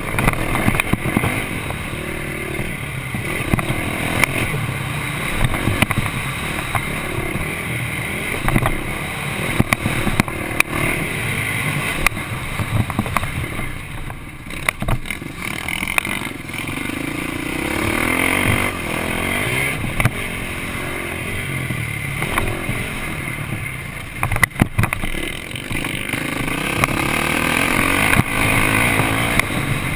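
Motocross bike engine heard from the bike itself, revving up and down with the throttle as it is ridden hard round a dirt track. The engine briefly eases off a couple of times, with scattered knocks and clatter from the bike over the bumps.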